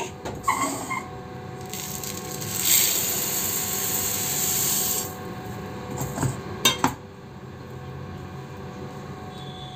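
Roasted black urad dal, pearl millet and split green gram pouring from a steel bowl into a steel mixer-grinder jar: a dry, rushing rattle of grains on metal lasting about two seconds. Two sharp metal knocks follow a second or so later.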